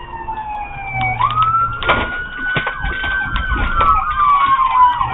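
Police car siren wailing, its pitch dipping, climbing quickly about a second in, then rising and falling slowly. A second, faster-warbling siren joins after about three and a half seconds, over a low engine rumble and a few short knocks.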